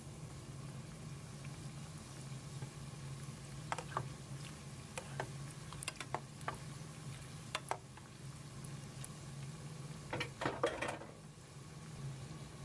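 Breaded arancini deep-frying in a small pot of oil, a faint steady sizzle over a low hum. Scattered sharp clicks and pops come through, with a quick cluster of them about ten seconds in.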